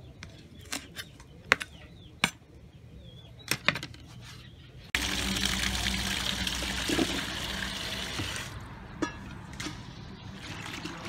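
A knife chopping green onions on a bamboo cutting board, a handful of sharp separate strokes. About five seconds in it switches suddenly to tap water running hard into a plastic tub, easing after a few seconds, with vegetable pieces dropping into the water near the end.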